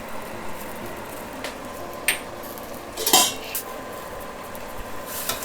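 A metal spoon clinking against a cooking pan a few times while the masala is being added and mixed, the loudest clink about three seconds in.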